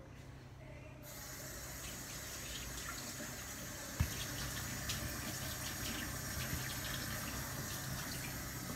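Water running from a kitchen tap into a stainless steel sink, starting about a second in and running steadily. A single sharp knock about four seconds in.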